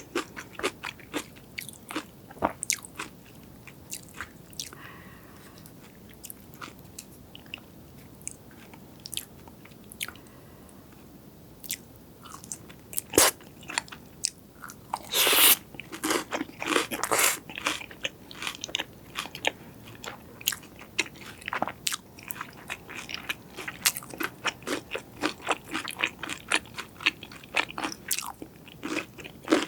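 Close-miked eating: crunchy bites and chewing, with a loud burst of crunching about halfway through and quieter chewing before it.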